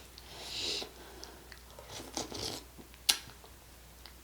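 Quiet mouth sounds of someone eating sherbet ice cream: soft smacks and small clicks, with one sharper click about three seconds in.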